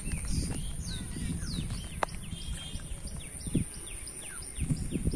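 Bird calls, short falling chirps: a few spaced ones at first, then a quick run of about three a second. Underneath is a steady low rumble with some thumps, and there is one sharp click about two seconds in.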